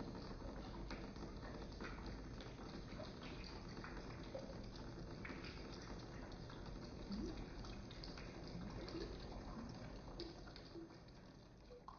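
Faint water sounds: many small drips and trickles over a steady hiss, fading near the end.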